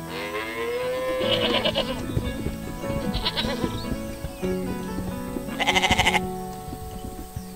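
Goat bleating three times in short, wavering calls, the last the loudest, over light background music.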